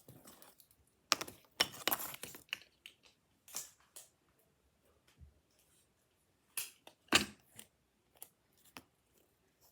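Paper and cardboard being handled during crafting: scattered rustles and clicks, bunched about a second in and again around seven seconds in.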